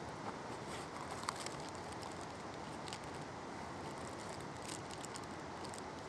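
Light handling noises of gear in an open backpack: a few small clicks and taps as rolls of 120 film are picked out, over a steady background hiss.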